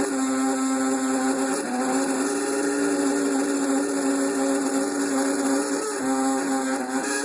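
Apartment refrigerator's freezer making a loud, steady humming drone, an abnormal noise for a freezer. Its pitch steps up slightly about a second and a half in and drops back near the end.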